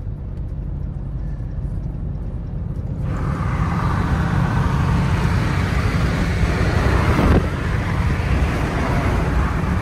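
Hellcat-swapped SRT8 with a supercharged V8, cruising at freeway speed and heard from inside the cabin as a steady low engine and road drone. About three seconds in, the hiss of wind and road noise rises sharply and grows louder, with a brief peak and dip a little past seven seconds.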